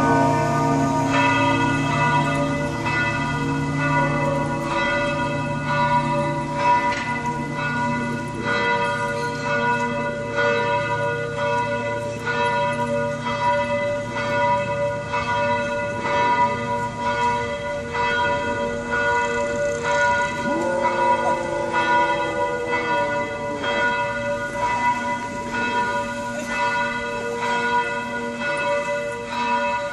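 Several church tower bells ringing together in a peal, their strokes overlapping every fraction of a second over a steady, ringing hum.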